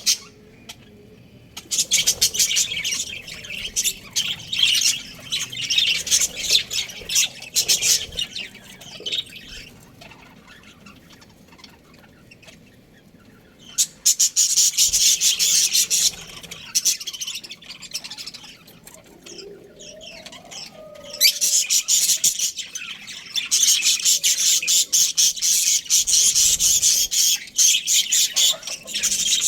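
Budgerigars chirping and chattering in fast, busy bouts, broken by quieter stretches of a few seconds.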